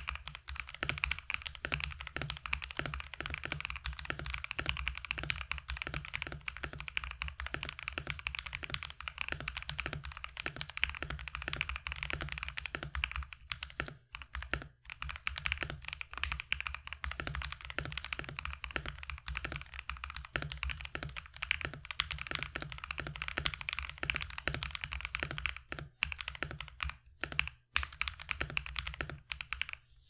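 Continuous fast typing on a modded Redragon K631 65% mechanical keyboard fitted with Agile Moon linear switches, lubed and band-aid-modded stabilizers and Cherry-profile keycaps. The keystrokes run in a dense stream, broken by a few brief pauses.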